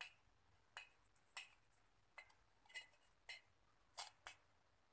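Faint, irregular sharp clicks and light taps of thin metal being handled, about nine over a few seconds, some ringing briefly.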